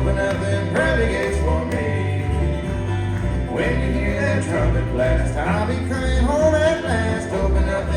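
Bluegrass instrumental played live on flatpicked acoustic guitar over an upright bass, which walks in alternating low notes.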